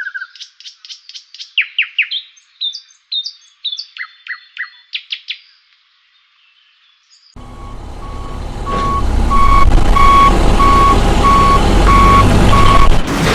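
Small birds chirping and trilling for about five seconds, then a short silence. A heavy vehicle's engine then starts up with a low rumble, and a reversing alarm beeps about one and a half times a second over it.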